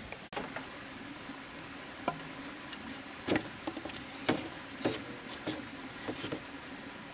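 A scatter of light, irregular knocks and taps, roughly one every half second to second, over a steady background hiss.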